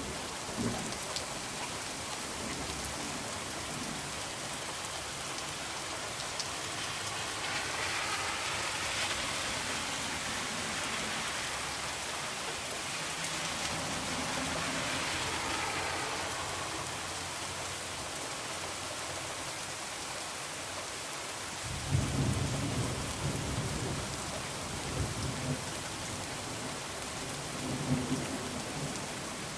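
Heavy rain falling steadily. Thunder rumbles in suddenly about two-thirds of the way through, with another rumble near the end.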